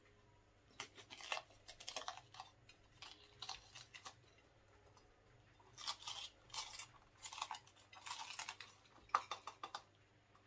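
Kitchen knife slicing through a crisp green pepper on a cutting board: faint crunching cuts that come in several short runs of quick strokes.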